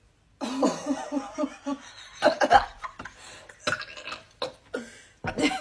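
A woman burping repeatedly: a long, stuttering burp near the start, then several shorter, sharper burps and coughs, the burps just keep coming.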